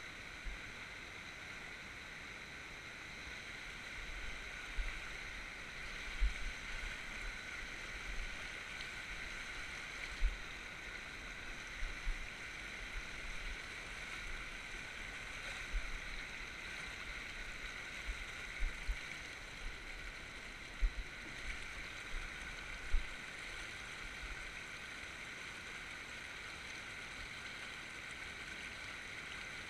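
Shallow, fast river running over rocks: a steady rush of water. Scattered low thumps sound from about four seconds in until about three-quarters of the way through.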